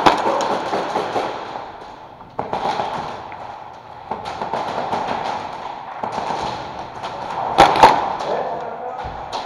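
Sharp pops of airsoft gunfire echoing around a hall, a few right at the start and a quick burst of two or three about three-quarters of the way through, the loudest sounds here.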